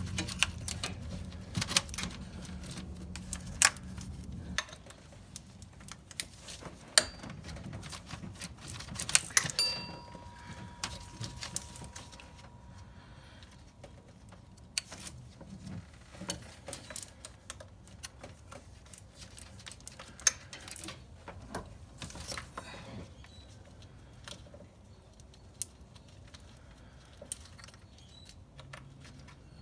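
Irregular metallic clicks and clinks of hand tools on a power steering pump's mounting bolt as it is worked loose, louder and busier in the first ten seconds, with a low hum that stops about four seconds in.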